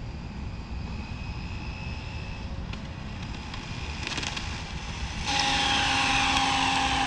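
Electric RC car's brushless motor (Arrma Limitless GT, XLX2 1100 kV) whining as the car drives back. The sound comes in suddenly about five seconds in: a steady electric hum with higher whines that fall in pitch. Before that there is only faint background noise and a thin high whine.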